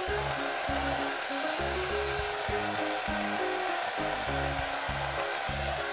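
Background music with a stepping bass line, over a constant whooshing noise.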